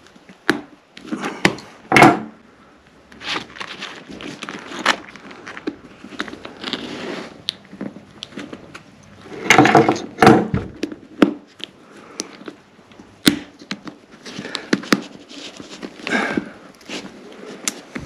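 Scattered clicks and knocks from hand repair of a snowboard boot's BOA lacing dial: steel pliers gripping and working the plastic dial, then the tool knocked down onto a wooden table. The loudest knocks come about two seconds in and in a cluster around the middle.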